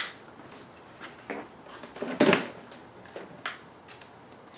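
A few light knocks and taps as a length of crown molding is handled and laid on a compound miter saw's table, the loudest about halfway through.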